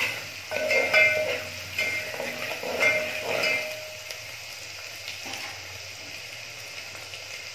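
Chopped onion and spice masala sizzling in hot oil in a metal pot. For about the first four seconds a spoon scrapes and stirs against the pot with sharp metallic scrapes; after that the sizzle goes on alone, quieter and steady.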